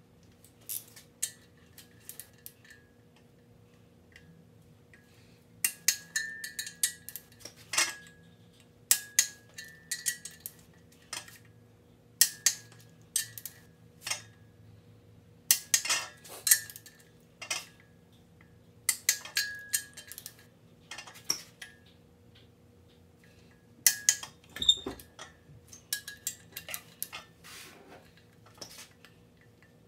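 Torque wrench ratcheting on the main-cap bolts of an engine block: short runs of sharp metallic clicks with a light ring, coming in bursts every few seconds as each bolt is pulled up to torque.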